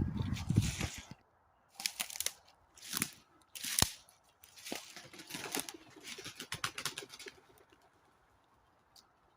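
Rustling and crunching from someone moving about a woodland camp, in a run of short bursts with a few sharp clicks, dying away about seven seconds in.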